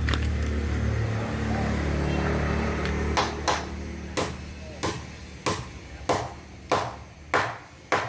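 A low steady hum stops about three seconds in. Then come hammer blows at an even pace, about three every two seconds, growing louder toward the end.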